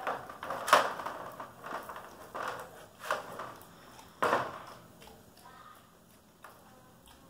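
German Shepherd puppy licking and gnawing a ham bone, the bone knocking and scraping against the floor pan of a wire crate: a string of irregular knocks, the loudest about three-quarters of a second in and just after four seconds.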